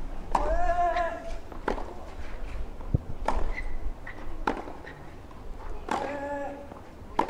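A clay-court tennis rally: a racket strikes the ball about six times, every second or so. A player lets out a drawn-out grunt with two of the shots, one near the start and one about six seconds in.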